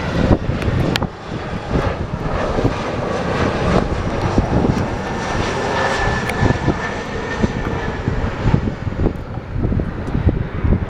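Airplane engine running, with a thin steady whine that comes in for a few seconds midway.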